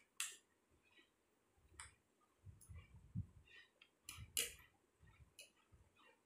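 Metal cutlery clicking and scraping against ceramic plates of rice, a few scattered sharp clicks with soft low bumps between them.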